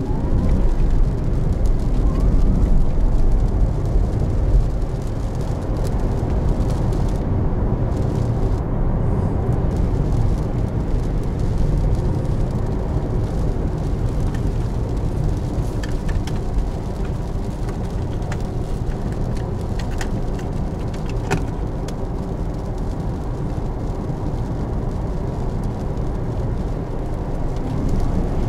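Porsche Taycan Turbo S driving on a rain-soaked road, heard from inside the cabin as a steady low rumble of tyres and wet road with no engine note. The rumble is louder for the first few seconds, then settles, with a few faint ticks.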